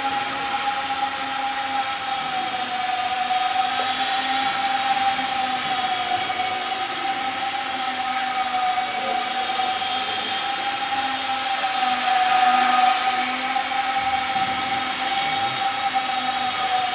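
Small indoor RC model plane's motor whining steadily in flight, its pitch wavering slightly with the throttle, briefly louder as it passes close about two-thirds of the way in.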